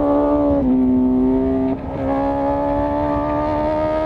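Honda Fireblade's inline-four exhaust at speed on track, recorded close with no wind noise. The engine note holds steady, steps down slightly under a second in, and dips briefly near the two-second mark. It then climbs slowly in pitch as the bike accelerates.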